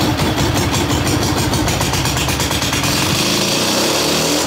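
A small engine running hard with a fast, rough pulsing beat, the high rattle smoothing out about three seconds in.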